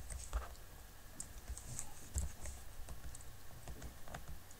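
Faint, irregular clicks of a computer keyboard, a few keystrokes spread unevenly over the seconds.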